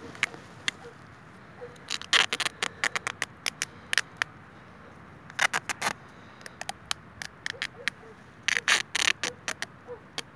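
Adhesive tape crackling as it is pulled off the roll and wrapped around a cherry graft, in three bursts of rapid crackles with scattered clicks between.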